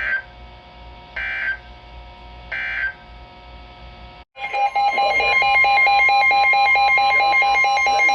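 Three short data bursts of the Emergency Alert System end-of-message code on NOAA Weather Radio, closing a warning. After a brief dropout about four seconds in, a loud, steady electronic alert tone starts with a fast pulsing over it, announcing the next warning.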